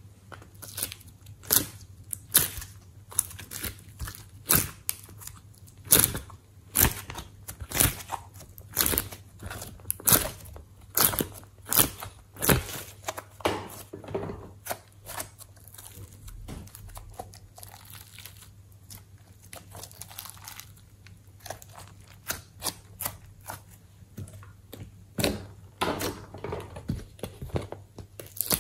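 Glossy slime handled by hand, pressed in the cells of a silicone ice-cube tray and squeezed in the fist, making irregular sharp clicks and pops about one or two a second, sparser past the middle.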